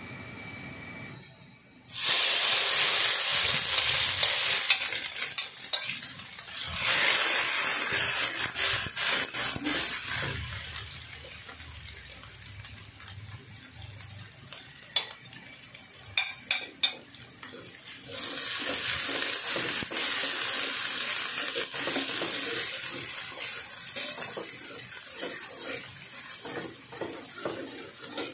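Chopped shallots and spice paste frying in hot oil in a non-stick wok. A loud sizzle starts suddenly about two seconds in and flares up twice more as more ingredients go in, and a metal spatula scrapes and clicks against the pan during the stirring.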